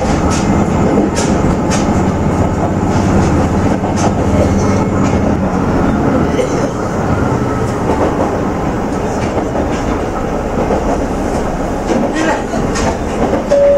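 Aizu Railway AT-650 diesel railcar running, heard from inside the car: a steady engine drone with wheels clicking over rail joints now and then. The drone drops about halfway through, and a brief two-note tone begins right at the end.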